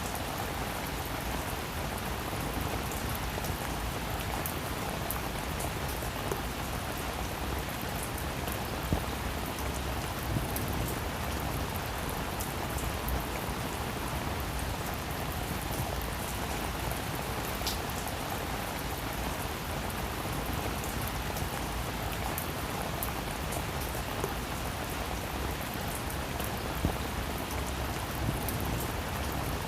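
Steady rain falling on a roof: an even hiss of rainfall with scattered individual drops ticking, a few sharper ones standing out here and there.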